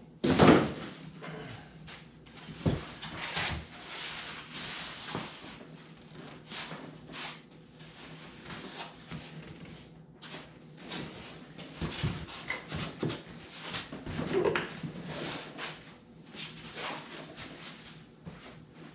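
Irregular knocks, clicks and rubbing from hands working with foam panels and clamps, with a louder knock at the very start.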